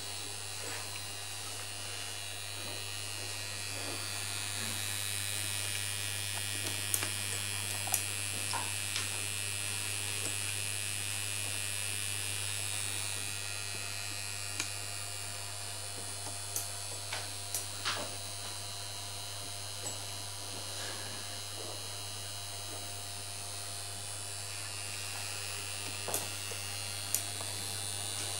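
Homemade punched card reader's electric motors running with a steady hum and a higher whir that grows louder for several seconds in the first half, with scattered light mechanical clicks.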